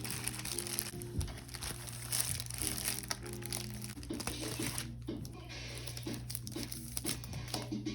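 Packaging crinkling and tearing as a parcel is opened by hand, over steady background music.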